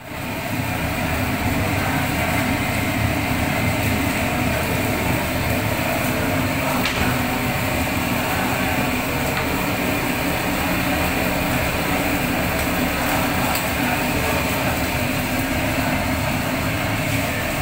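Gas stove burner running at full flame under a rack of raw chicken, a loud, steady rushing hiss.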